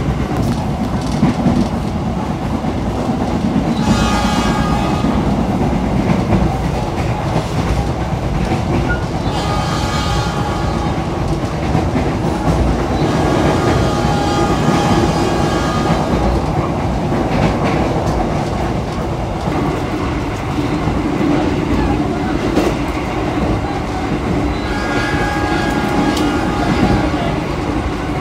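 Running noise of the Argo Cheribon passenger train heard from inside its economy carriage: a steady rumble of wheels on the rails with clickety-clack. A few times a higher-pitched ringing rises briefly over the rumble.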